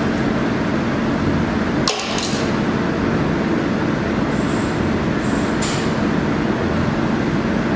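Steady machine running noise with a low hum, from a laser machine idling with its laser off. A few short, high hissy sounds break in between about two and six seconds in.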